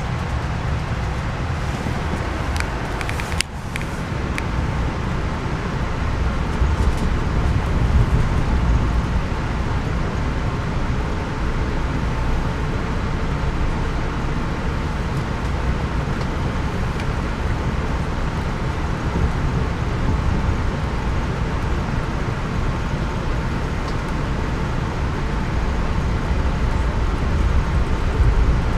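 Steady low rumble of a passenger train car running at speed, heard from inside the cabin, with a brief click a few seconds in.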